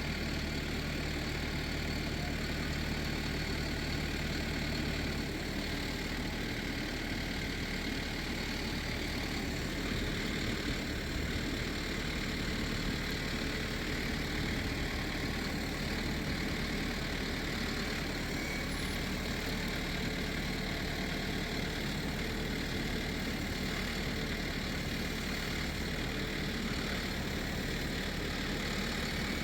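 A farm machine's engine idling steadily, a low even hum with no revving.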